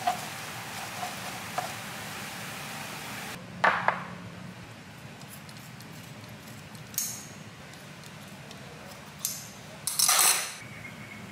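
Kitchen scissors snipping through slices of raw meat in a ceramic bowl: a handful of separate snips and metal clicks, the loudest and longest near the end.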